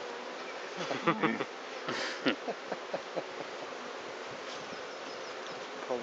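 Honeybees buzzing steadily over an open hive, with a run of clicks and a short scrape in the first half as a brood frame is levered up with a hive tool and lifted out.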